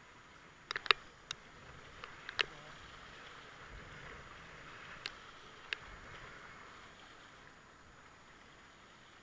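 River rapids rushing around a whitewater kayak as it is paddled downstream: a steady hiss of moving water that eases off near the end, broken by about eight sharp knocks, the loudest about a second in.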